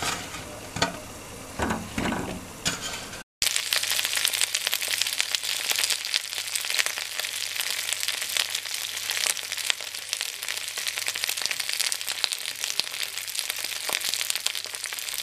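Cut okra pieces frying in a spoonful of hot oil in a pan: a steady sizzle with fine crackling. For the first three seconds it is quieter with a few clicks, then after a brief cut it is louder and denser.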